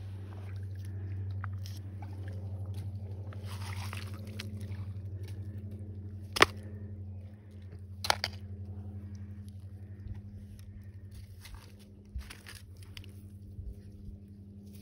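Creek gravel and stones crunching and knocking as someone moves over a rocky creek bank, with two sharp knocks in the middle, over a steady low hum.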